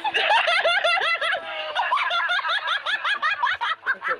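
High-pitched, rapid cackling laughter: a quick, unbroken run of short squeals that glide up and down, several a second.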